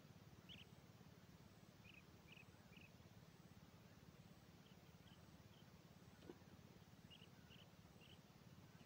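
Near silence with faint, short, high chirps from a small animal, mostly in runs of three; a single faint click about six seconds in.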